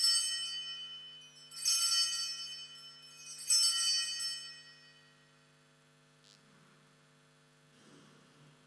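Altar bells (Sanctus bells) rung three times, each ring bright and high, dying away before the next. They mark the elevation of the chalice at the consecration of the Mass.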